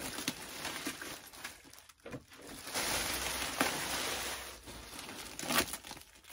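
Thin plastic wrapping crinkling and rustling as it is pulled off a new air purifier, coming in waves with the loudest stretch about three to four and a half seconds in.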